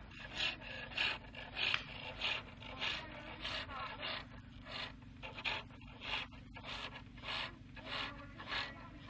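Wood being turned on a foot-powered pole lathe. Each treadle stroke spins the workpiece against the turning tool, giving a scraping cut about every 0.6 s in a steady rhythm.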